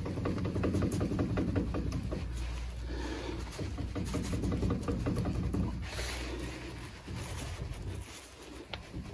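Renault Clio 4 driving over a rough road with a rapid knocking from the front brakes over the low road rumble. The knock is the sign of worn front caliper brackets (guides) rattling.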